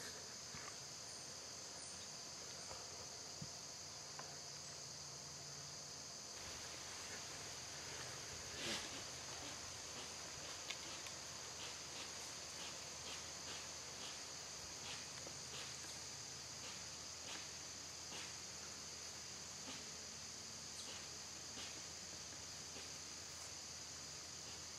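Crickets chirping steadily, with one faint, short hissing wheeze from a white-tailed buck about nine seconds in: an aggressive call made near a dominant-buck lure.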